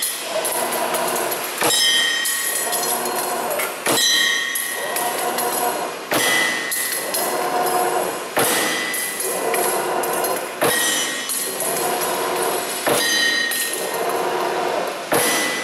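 Spring-forming machine running in automatic cycle: motors whir as the wire is fed and formed, and a sharp clack comes once per cycle, about every two and a quarter seconds, seven times.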